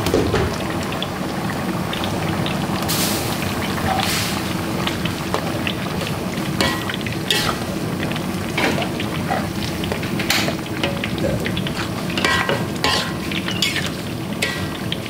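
Food cooking in a pan with a steady hiss, while a metal utensil clinks and scrapes against the pan now and then as it is stirred.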